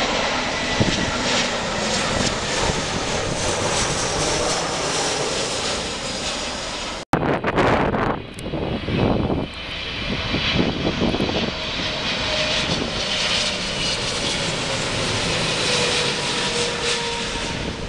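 Twin-engine jet airliners on final approach passing overhead, a steady loud engine rumble and whine. The sound drops out briefly about seven seconds in and picks up again on another airliner, whose engine whine falls slowly in pitch as it passes.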